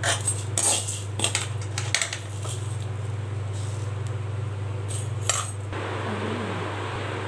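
A steel ladle clinking and scraping against an aluminium kadai of dry-roasted rice, several sharp clinks over the first couple of seconds and one more later, over a steady low hum.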